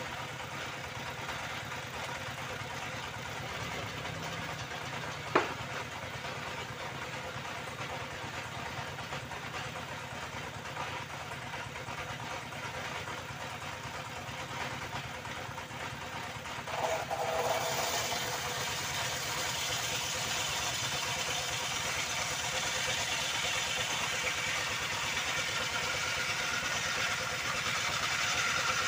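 Motor of a circular saw machine running steadily, with a sharp click about five seconds in and a step up in loudness around seventeen seconds.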